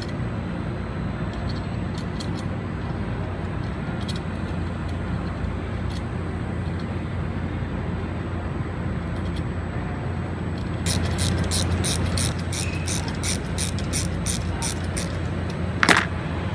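Ratchet wrench clicking in a quick, even run for about four seconds as a bolt is run down, over a steady low shop hum. A few scattered clicks of parts being handled come before it, and one sharper knock near the end.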